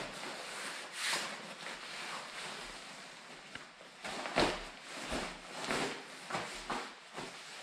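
Textile motorcycle jacket rustling in irregular swishes as it is handled and tried on, with a few sharper knocks.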